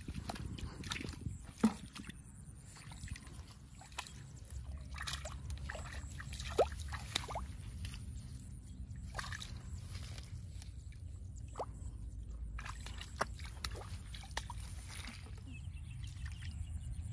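Water sloshing and splashing in shallow muddy water as someone wades and feels by hand for catfish, with scattered sharp splashes over a steady low rumble.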